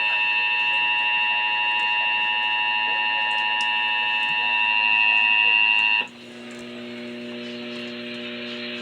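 Emergency Alert System attention signal: a loud, steady two-tone alarm that cuts off abruptly about six seconds in. A quieter, lower steady hum of several tones follows it.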